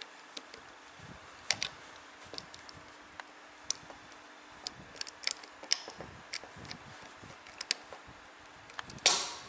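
Small metal parts of a CO2 air revolver's trigger and hammer mechanism clicking and tapping as fingers fit them into the open frame: scattered sharp, irregular clicks, with a louder, brief clatter near the end.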